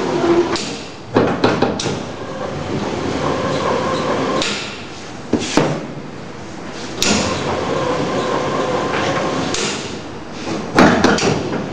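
Electric dough sheeter running with laminated croissant dough on its conveyor belts, a steady machine hum under the motor, broken by loud clunks about a second in, twice in the middle and near the end as the belt direction is switched and the dough passes the rollers.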